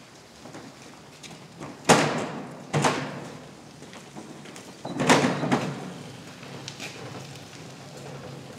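Three heavy knocks: one about two seconds in, a second a second later, and a longer, rougher one about two seconds after that, each dying away quickly.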